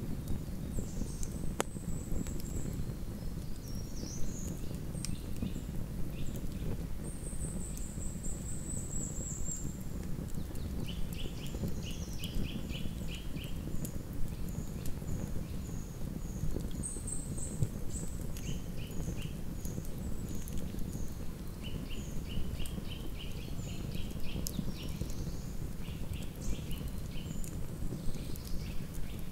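Campfire burning, with a few sharp snaps over a steady low rush. Small songbirds call with thin high notes and several short, rapid trills.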